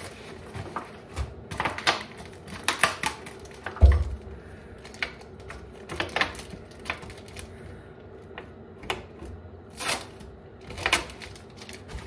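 A thin plastic water bottle filled with water crinkling and crackling as it is handled and wrapped in paper towel, with paper rustling. A single dull knock about four seconds in.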